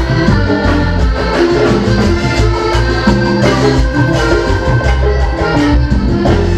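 Live vallenato band playing an instrumental passage, with an accordion melody over bass and hand percussion keeping a steady beat.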